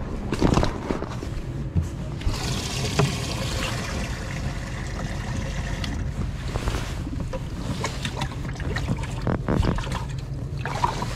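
Water splashing and trickling in a bass boat's livewell as fish are reached for by hand, with rustling and knocks of gear being handled. A steady low hum runs underneath.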